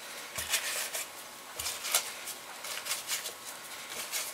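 Stick of butter in its wrapper rubbed around the inside of raw biscuit-dough cups in a metal muffin tin: a series of short brushing, rustling strokes, with a couple of light knocks against the tin.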